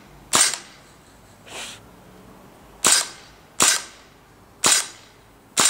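WE Tech SCAR-L green-gas blowback airsoft rifle firing single shots on semi-auto: five sharp cracks, each with the gas-driven bolt cycling, spaced irregularly about a second apart, with a softer puff of noise about a second and a half in.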